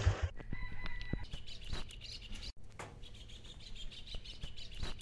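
Motorcycle engine cutting off just after the start, then birds chirping, with a few light clicks and knocks.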